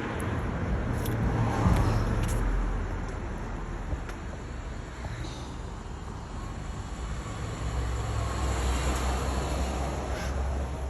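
Street traffic noise: vehicles going past with a low rumble that swells about two seconds in and again near the end.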